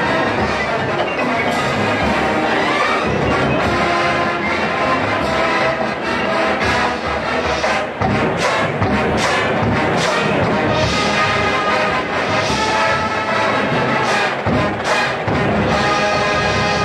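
Marching band playing a brass-led number, with drumline hits coming in thick about halfway through.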